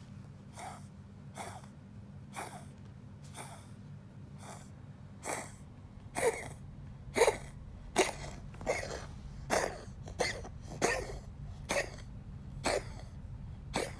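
A pet coughing in a long run of short coughs, roughly one a second, growing louder from about halfway through.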